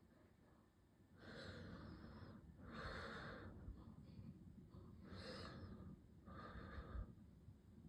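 A person breathing softly close to the microphone, four slow breaths, each about a second long, over a faint low rumble.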